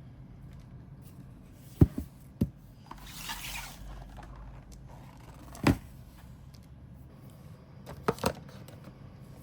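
Objects being handled on a hard surface: about five short sharp knocks, a pair of them close together near the end, and a brief scraping hiss about three seconds in.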